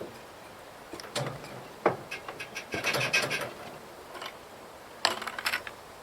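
A log being rolled off a trailer by hand: wood scraping and knocking, with one sharp thud about two seconds in as it drops, and another short burst of knocking near the end.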